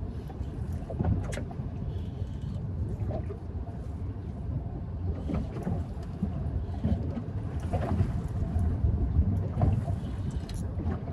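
Low rumbling noise on a small fishing boat, with scattered knocks and clicks as a hooked bonito is reeled in on rod and reel.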